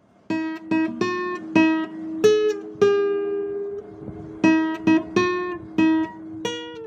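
Guitar playing a slow melody of single plucked notes. The notes come about two to three a second, and one note is left ringing for over a second near the middle.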